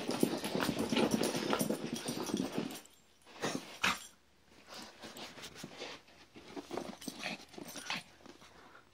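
Small dog, a Brussels Griffon, making rough play noises while wrestling with a toy. It is loud and continuous for the first three seconds or so, then comes two sharp short sounds about a second apart, then quieter scattered sounds.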